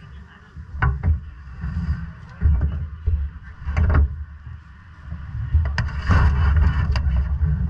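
Quarter midget race car at speed, heard through a GoPro: a heavy low rumble of the small engine and wind buffeting on the microphone, surging up and down, with several sharp knocks.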